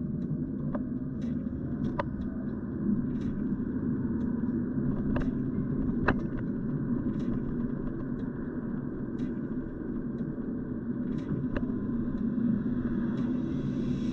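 Steady low rumble of a car being driven, heard from inside the cabin: tyre and engine noise, with scattered sharp clicks every second or so.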